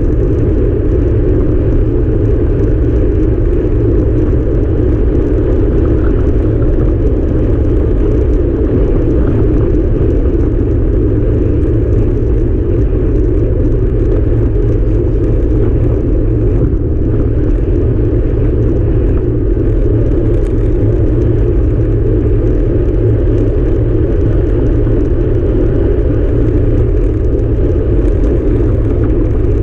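Road bike at speed: a loud, steady rush of wind over the handlebar-mounted camera's microphone, mixed with tyres rolling on asphalt.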